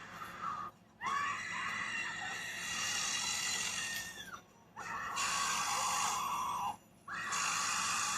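Long, high-pitched screaming in three sustained stretches, broken by two short silences, the first about four seconds in and the second about seven seconds in.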